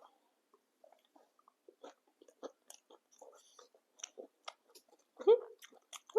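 Close-miked chewing of papdi chaat: many small wet clicks and crunches from the mouth as the crisp papdi and chutney are chewed, with a louder wet mouth sound about five seconds in.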